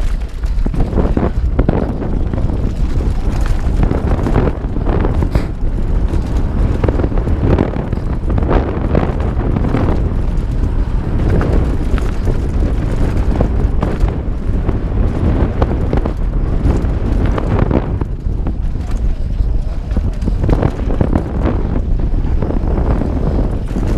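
Wind buffeting the action-camera microphone at riding speed, over the constant rattling and clattering of a Santa Cruz Bronson mountain bike descending a rough trail.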